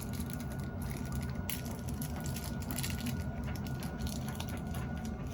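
Tumble dryer running with a steady low hum and a faint steady whine, with occasional small clicks and rustles of handling on top.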